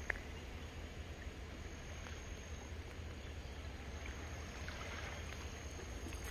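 Calm sea water lapping softly on a pebble beach, over a steady low rumble, with a single click right at the start.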